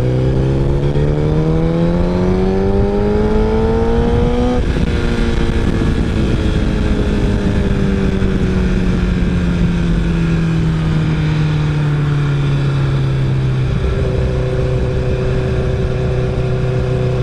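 Honda CBR1000RR sportbike's inline-four engine pulling up through the revs for about four and a half seconds, then dropping sharply in pitch at an upshift. After that it slowly eases off and settles to a steady cruise near the end.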